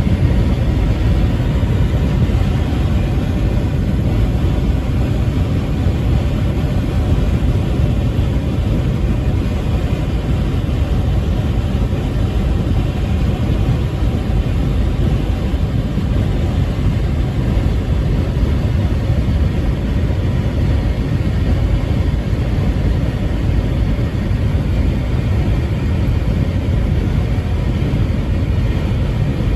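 Truck driving on the highway: a steady, unbroken rumble of engine and road noise, heaviest in the low end.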